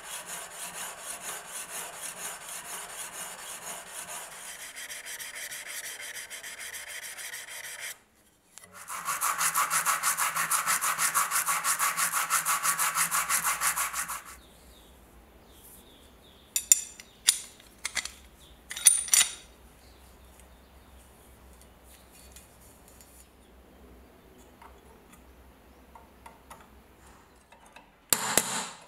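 A hand file rasping in fast, even strokes along a rusty steel knife blade, then louder, quicker strokes of the blade rubbed on an abrasive sheet to clean off rust. A few light metal clicks follow, and near the end a metal pin punch is struck against the knife's guard.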